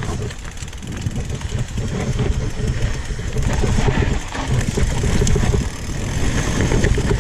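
Riding noise from a downhill run on a rough trail: wind buffeting the microphone over an uneven low rumble of the wheels on the ground.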